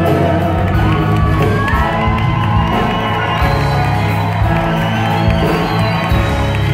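Live band of acoustic guitars, drums and keyboard playing on, with the audience cheering and whooping over the music.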